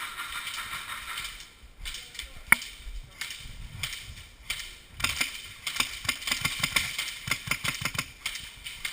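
Airsoft guns firing: irregular sharp pops and clicks, with one loud crack about two and a half seconds in and a quick string of shots from about five seconds on.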